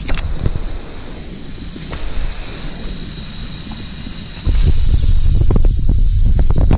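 Timber rattlesnake rattling its tail in a steady, high, dry buzz, its defensive warning, strongest from about a second and a half to four and a half seconds in. From then on a loud low rumble of wind on the microphone and grass brushing past the camera covers the buzz, which goes on faintly beneath.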